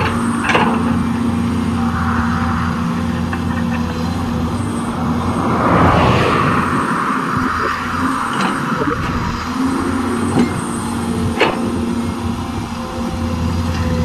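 Caterpillar tracked hydraulic excavator's diesel engine running steadily under load while it digs and dumps soil. The sound swells louder about six seconds in, and there are a few sharp knocks.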